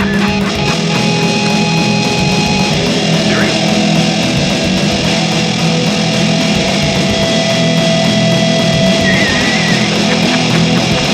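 Loud rock music with distorted electric guitar. A high note wobbles in pitch near the end.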